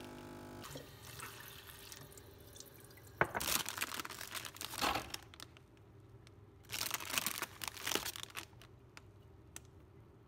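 A capsule espresso machine's pump hums steadily as it finishes dispensing into a mug and stops under a second in. Then a plastic marshmallow bag crinkles loudly in two bouts, a couple of seconds each, with a few light clicks afterwards.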